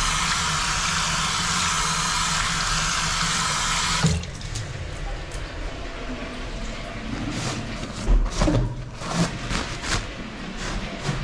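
Tap water running steadily from a faucet over hands into a sink, cutting off abruptly about four seconds in. Then quieter scattered rustles and knocks, with paper towels pulled from a wall dispenser near the end.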